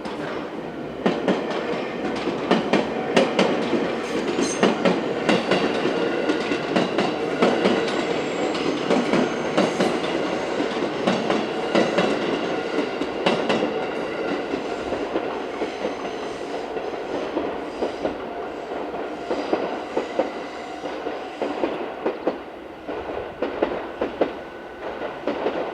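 221 series six-car electric train passing close by, its wheels clacking in a long, quick run over the rail joints. The clacking is loudest in the first half and gradually thins out as the train goes by.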